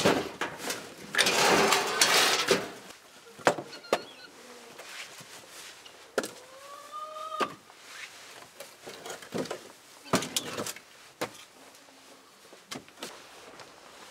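Split firewood tumbling out of a tipped wheelbarrow onto a pile with a loud wooden clatter, in two bursts over the first couple of seconds. This is followed by scattered single knocks as logs are picked up and set down for stacking. A short rising whine is heard about six seconds in.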